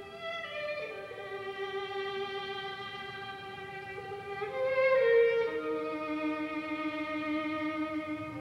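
Background music: a slow violin melody of long held notes that slide from one pitch to the next, swelling to its loudest about five seconds in.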